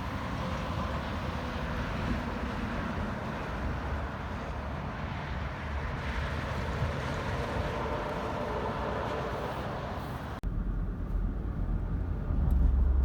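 Steady rushing noise of passing vehicles. About ten seconds in it cuts abruptly to a deep engine rumble, which grows louder near the end.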